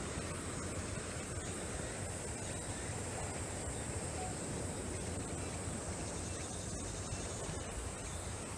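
Outdoor ambience dominated by a steady, high-pitched insect buzz from a chorus of summer insects, over a low background rumble.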